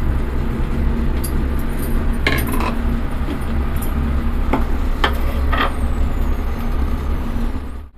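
Electric mixer grinder running steadily, its motor humming as it grinds coconut, green chillies, ginger and cumin into a paste. A few short clinks sound over it.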